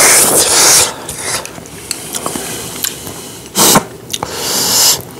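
Close-miked eating noises from a man at a meal: two rasping hisses about a second long, one at the start and one near the end, with a sharp click between them.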